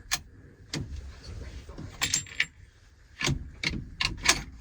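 Sharp metallic clicks and jangles from metal objects being handled: about eight separate hits, some bunched in quick clusters, over a low rumble.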